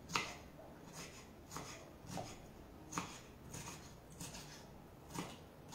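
Kitchen knife dicing a yellow bell pepper on a wooden cutting board: short, sharp taps of the blade against the board, irregular, roughly every half second.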